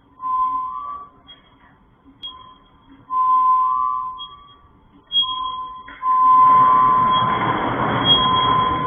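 Eerie ringing pings, like a sonar ping or struck singing bowl, repeating on one pitch with a fainter higher ring. About six seconds in a loud rushing noise swells up and holds under them.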